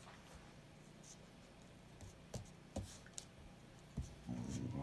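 Dogs play-fighting on a rug over a wooden floor: scattered soft scuffles, knocks and claw scratches from paws, with a brief low vocal sound near the end.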